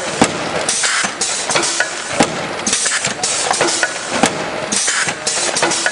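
Paper-bag take-off conveyor on a packaging line running: a dense mechanical clatter with sharp clicks and knocks, and short hissing bursts every second or two as bags are indexed through and their flaps folded shut.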